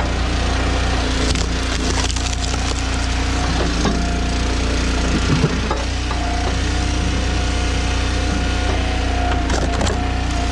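Eastonmade Ultra hydraulic log splitter's engine running steadily while it splits wood, with sharp cracks as the logs split, a few times.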